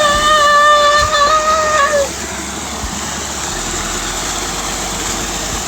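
A person's voice holding a long, steady "wooow" for about two seconds, dipping as it ends, over a continuous rush of falling water from a waterfall.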